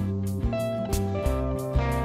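Instrumental background music with a steady beat over sustained bass notes.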